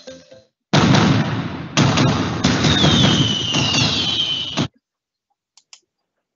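Fireworks: two loud bangs about a second apart, then crackling with descending whistles, cutting off suddenly near the end.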